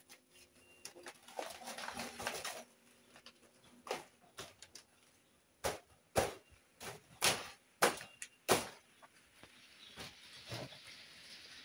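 Irregular sharp knocks and rustling from a large green banana bunch and its plant being worked loose by hand, some of the knocks coming close together in pairs.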